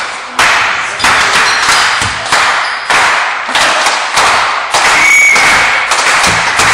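A steady beat of loud thumps, about one every two-thirds of a second, each fading out slowly in the echoing gym, with a short referee's whistle blast about five seconds in.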